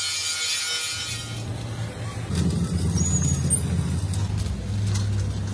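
Truck engine running low and steady, getting louder about two seconds in.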